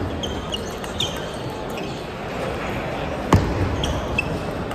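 Table tennis ball struck by paddles and bouncing on the table in a rally: a few sharp clicks, the loudest about three seconds in, with short high squeaks of sports shoes on the wooden floor and the murmur of a large hall.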